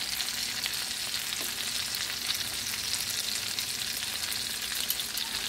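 Seasoned oxtails searing in hot oil in a skillet: a steady sizzle with fine crackling.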